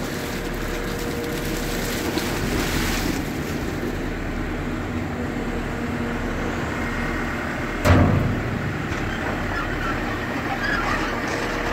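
Engine of a tracked vineyard carrier with a raised tipping bin running steadily while the bin empties its load of grapes. A single loud clunk comes about eight seconds in.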